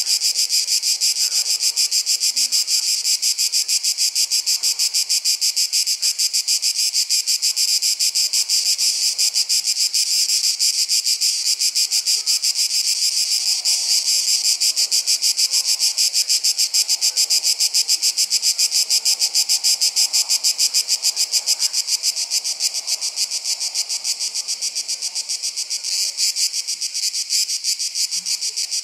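Dense chorus of summer insects: a loud, high-pitched drone that pulses rapidly and evenly without a break.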